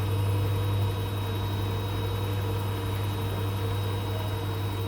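Hoover washing machine running after a repair, its motor and drum giving a steady hum, a little quieter about a second in.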